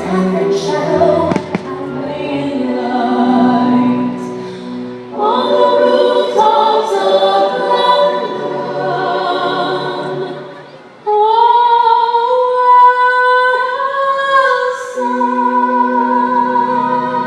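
Music with a choir singing. It drops briefly about ten seconds in, then comes back loud with long held notes.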